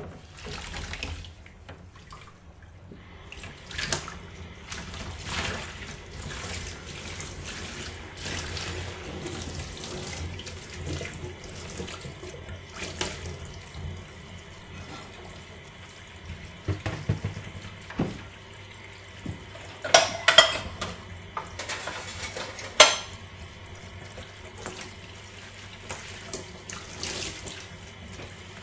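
Tap water running into a sink while an object is scrubbed under it, with a few sharp knocks and clatters against the sink, the loudest about two-thirds of the way through.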